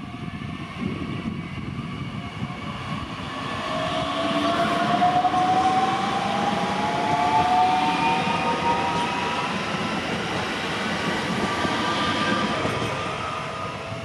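Class 442 Talent 2 electric multiple unit accelerating past on the track, its traction motors whining in several tones that rise steadily in pitch as it gathers speed, over the rumble of wheels on rail. It is loudest in the middle as it goes by, then fades.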